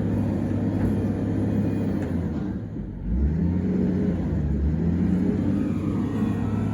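Bulldozer's diesel engine running steadily, easing off briefly about halfway through and then pulling up again under load.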